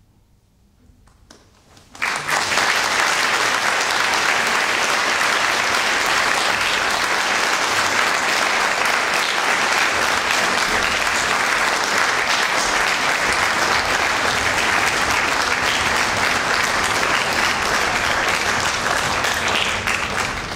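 After about two seconds of hush, an audience breaks suddenly into applause that goes on steadily.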